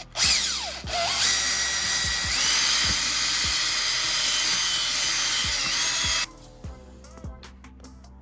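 Electric drill running: a short burst, then about five seconds of steady running with its whine stepping up in pitch partway through, before it stops suddenly. Faint background music with a beat underneath.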